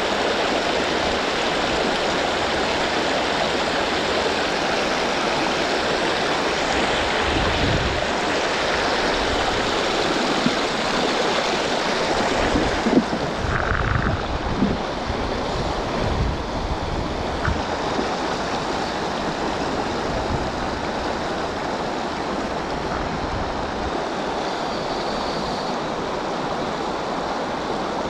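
Steady rush of shallow river rapids, with a few low knocks and bumps partway through.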